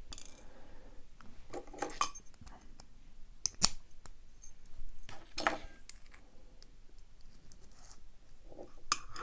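Light metallic clicks and clinks of a Master Lock Model 911 laminated steel padlock being taken apart by hand. The sharpest clicks come about three and a half and about five and a half seconds in.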